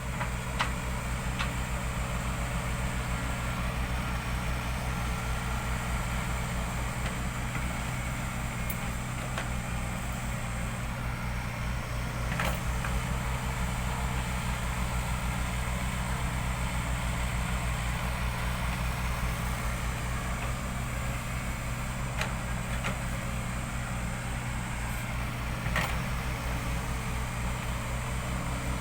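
Caterpillar excavator's diesel engine running steadily at an even speed, with a few sharp knocks now and then.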